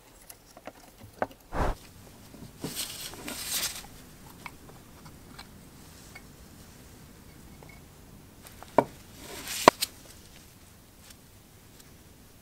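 Handling noises from parts of a Black and Decker D500 corded drill being taken apart: a dull knock about a second and a half in, about a second of rustling, then two sharp clicks later on as the metal gear housing and its grease-packed cover are handled.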